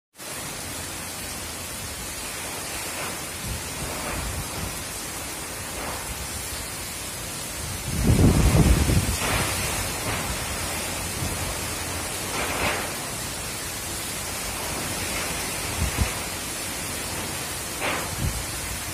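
Tropical cyclone wind and heavy rain: a steady rushing hiss, with a loud, deep gust about eight seconds in and a few smaller gusts later.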